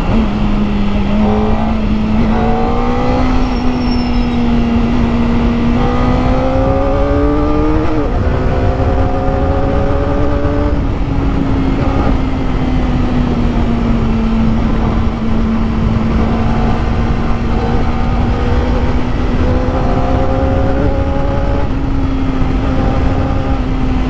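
Kawasaki ZX-4RR's 399 cc inline-four running at a steady cruise of about 100 km/h through its stock catalysed muffler, the engine note climbing slightly a few times and settling, over steady wind and road noise.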